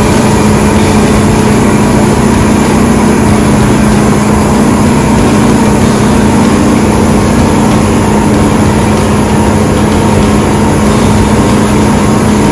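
Diesel harvest machinery running steadily under load: a loud, even drone with a strong steady hum.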